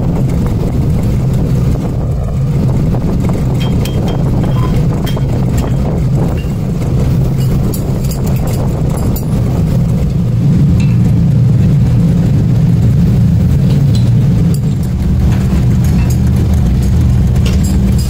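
A machine running with a steady low drone, with a few faint light clicks over it.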